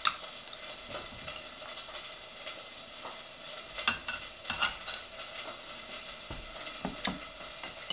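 Food sizzling in a frying pan, a steady hiss throughout, with a few sharp clicks as metal tongs work in a glass pickle jar, near the start and around four and seven seconds in.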